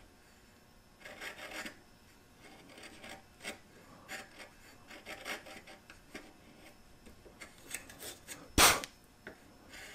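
Bench chisel paring wood by hand in the sockets between dovetail tails: a series of short, light scraping strokes of steel shaving the wood, with one sharp knock near the end.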